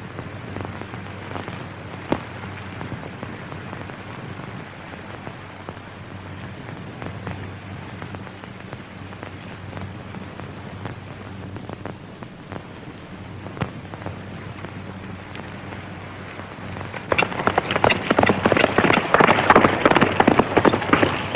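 Hiss and crackle of a worn 1930s film soundtrack with scattered clicks and pops. About seventeen seconds in, a much louder burst of dense crackling and rustling noise sets in and runs on for about four seconds.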